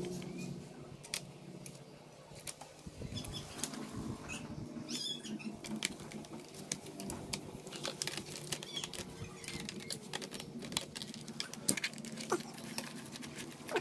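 Irregular light clicks, taps and scrapes of hands working on the plastic and metal parts of an open laptop, with a brief squeak about twelve seconds in.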